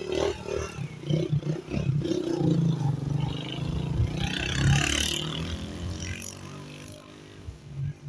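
A motor vehicle passing: engine and tyre noise build up to a peak about five seconds in, then fade away.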